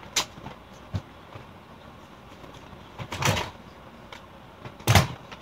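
Paper mail being handled: light clicks and rustles of an envelope and card, with a longer rustle about three seconds in and a louder knock near the end.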